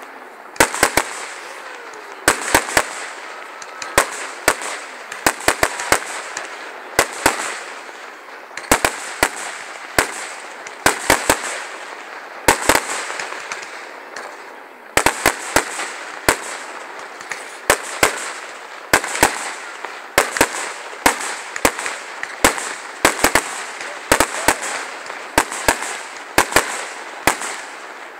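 Aerial fireworks bursting overhead: a long, irregular barrage of sharp bangs, about two a second and often in quick pairs or triples, over an even hiss.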